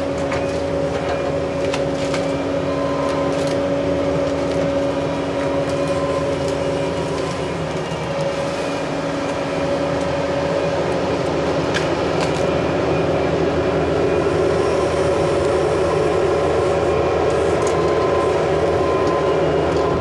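Bobcat T770 compact track loader's diesel engine running steadily under load as the machine tracks over the ground and a hydraulic tree-puller claw rips a tree out by its roots. The drone is even throughout, with a few sharp clicks and cracks over it.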